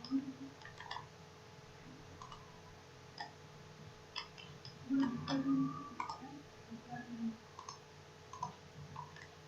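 Computer mouse clicking repeatedly in an irregular scatter of light clicks as edges are selected one by one. A brief low murmur sounds about five seconds in.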